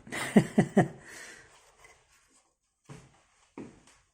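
Plastic clicks and knocks from prying at a clipped-in part of an Amiga 500 case: three quick sharp knocks about half a second in, then two softer taps near the end.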